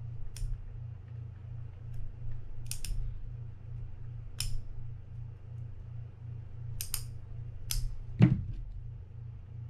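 Small metallic clicks of steel tweezers against the screws and metal body of a spinning reel as the screws are picked out: about half a dozen scattered ticks, the loudest with a dull knock about eight seconds in, over a steady low hum.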